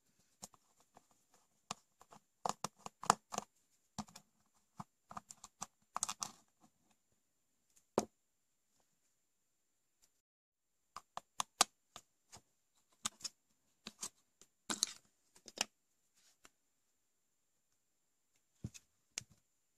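Scattered small clicks, taps and scrapes of handling: a screwdriver turning out the small screw of a clamp meter's plastic battery cover, the tool and screw set down on the bench, and the cover lifted off. The loudest knocks come about three, eight, twelve and fifteen seconds in.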